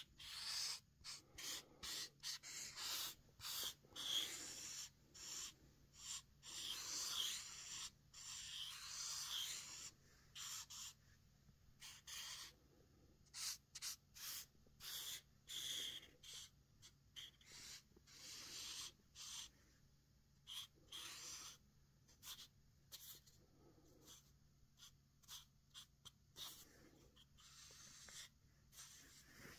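King Size permanent marker drawing on paper: a faint, irregular run of short scratchy strokes and quick scribbles with brief pauses between them.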